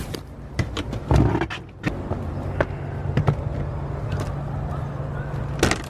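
Scattered clicks and knocks from handling gear, with a heavy thump about a second in and a sharp click near the end, over a steady low hum.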